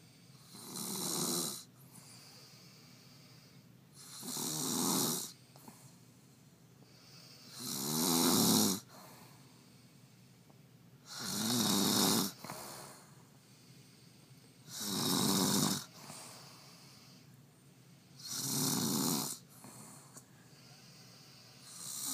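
A woman snoring in sleep: six loud snores, each about a second long with a low buzz under a strong hiss, one every three and a half seconds or so, with quiet between them, and a seventh starting near the end.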